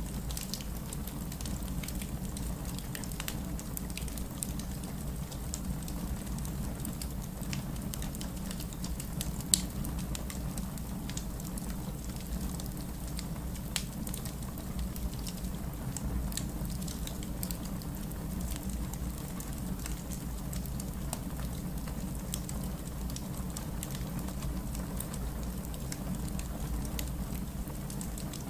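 Wood fire crackling in a fireplace: a steady low rumble of flames with many small scattered pops and one louder snap about ten seconds in.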